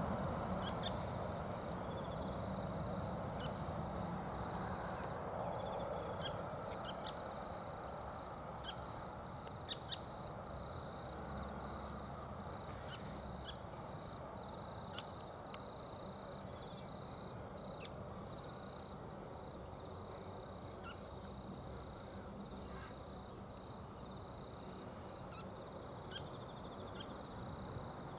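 Outdoor ambience: a steady low rumble that eases a little over the first several seconds, with scattered short sharp ticks and a faint, steady high-pitched whine.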